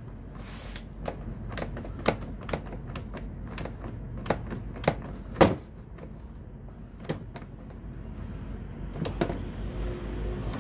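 Irregular sharp plastic clicks and knocks as a Honda PCX 125 scooter's plastic body panels are pressed and snapped together by hand, the loudest about five and a half seconds in.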